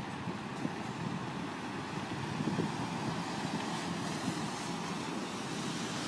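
Heavy truck with a drawbar trailer turning slowly, its diesel engine running with a steady, uneven low rumble and a hiss of road noise.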